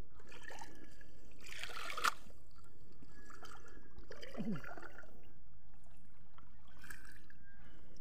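Water trickling and lapping, with a short splash about two seconds in.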